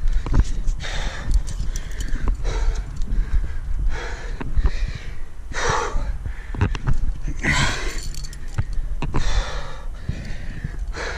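A rock climber breathing hard on a steep limestone route: heavy breaths about every one and a half to two seconds, the strongest around the middle. There are scattered small clicks and a low rumble of wind on the microphone underneath.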